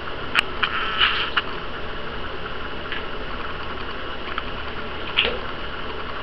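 Small splashes and lapping of shallow bathwater as pet rats swim and paddle in a bathtub. A cluster of short sharp splashes comes in the first second and a half, with a few more later, over a steady low hum.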